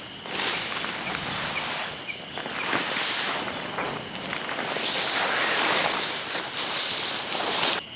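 Rustling and crackling of tent fabric being gathered up and folded, coming in several swelling waves.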